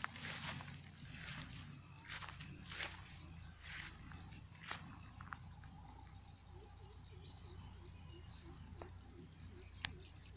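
Insect chorus in a grassy field: a steady, unbroken high-pitched drone, with a few faint clicks in the first half.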